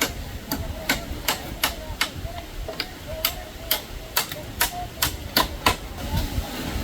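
A series of sharp, irregular knocks or taps, about two to three a second, with a faint wavering tone in the background.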